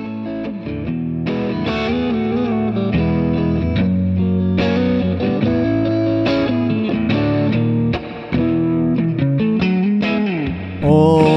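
Podcast intro theme music led by an electric guitar, with a brief drop-out about eight seconds in.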